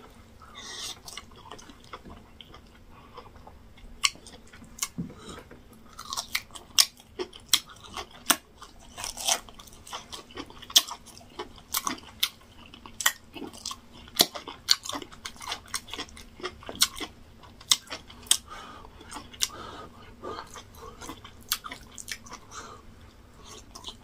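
A man chewing a mouthful of yam fufu and egusi soup, close to the microphone, with many sharp, irregular mouth clicks and lip smacks that grow frequent after the first few seconds.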